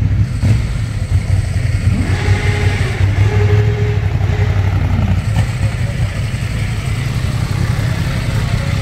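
Motorcycle engines idling with a steady low rumble. About two seconds in, one engine revs up, holds, and drops back about five seconds in.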